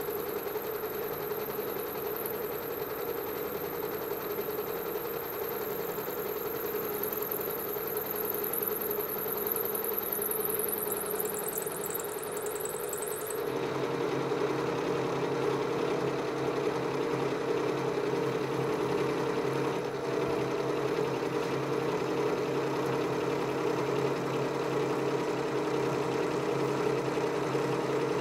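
Precision Matthews PM-727 milling machine running a roughing end mill through a metal part, a steady machining hum and cutting noise. About halfway through, a high whine cuts off and the lower cutting sound becomes fuller and louder.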